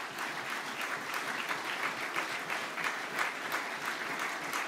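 Audience applauding: many people clapping in a steady, dense patter.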